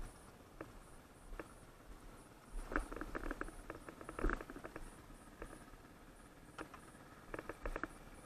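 Footsteps on loose rock and gravel: scattered clicks and crunches of stones underfoot, with busier spells of rattling about three seconds in and again near seven seconds.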